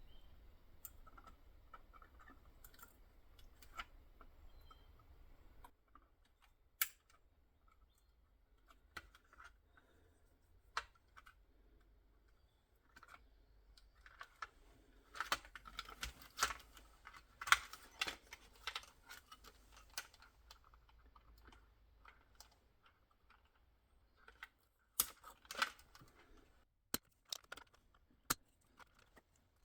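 Small wire cutters snipping the metal legs of LEDs on a circuit board: a series of sharp clicks, with denser bursts of small clicking and rattling partway through and near the end.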